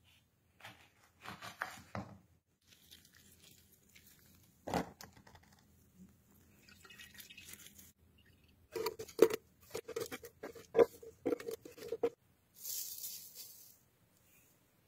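Kitchen food-prep handling: scattered knocks on a wooden cutting board, then a quick run of knocks and clinks on glassware with a ringing tone, and a short hiss of salt poured onto chopped vegetables in a blender jar near the end.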